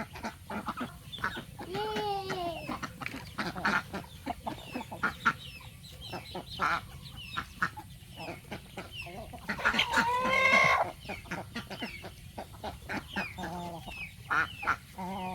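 A flock of farm poultry calling: many short clucks and cries, with one loud, harsh drawn-out call about ten seconds in.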